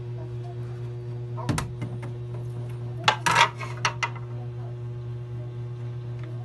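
Metal cooking pot knocking and clinking as pieces of milkfish are set into it by hand: a couple of knocks about a second and a half in, then a louder clatter around three to four seconds in. A steady low hum runs underneath.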